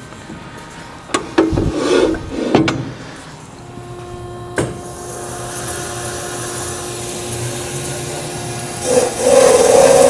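A few knocks and clunks of handling at the metal-cutting band saw. About three and a half seconds in, the saw's machinery starts with a steady hum, and it grows much louder near the end.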